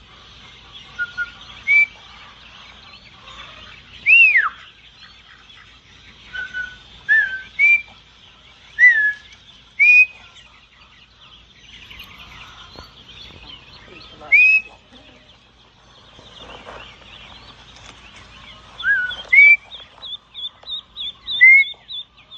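Ducklings peeping: loud single high chirps every second or two, each a short glide in pitch, with a quick run of fainter peeps near the end.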